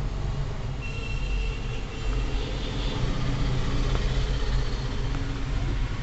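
Steady low background rumble with a fainter even hiss above it.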